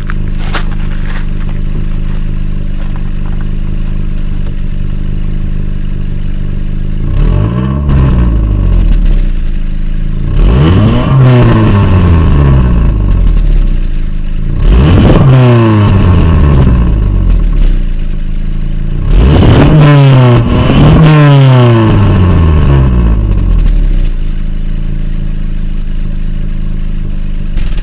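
Car engine accelerating hard several times, its pitch climbing and then dropping back as it changes gear, over a steady low road rumble.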